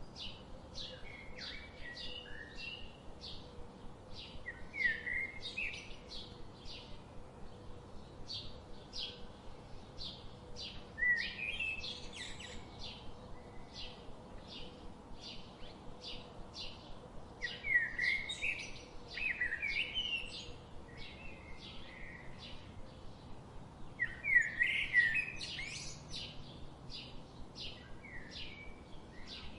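Birds singing: one bird gives a steady run of short, high chirps, about two a second. Louder warbling phrases from another bird come in every few seconds, strongest near the middle and about three quarters of the way through.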